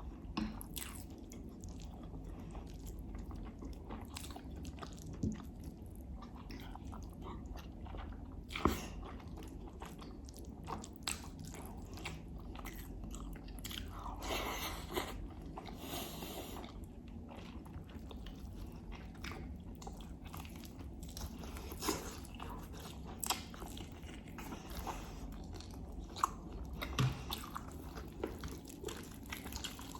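Close-miked chewing and wet mouth sounds of a person eating rice, herb stew and lamb, with many small clicks, a few sharper ones, and a longer noisy stretch about fourteen to sixteen seconds in.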